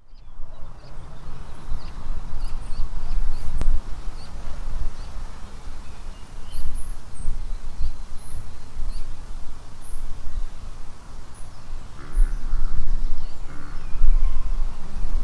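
Small birds chirping in short, high calls, some in quick pairs, over a loud, gusting rumble of wind on the microphone. A lower, harsher call comes in about twelve seconds in.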